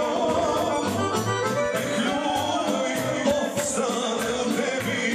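Folk band music with an accordion carrying the melody over a steady drum beat.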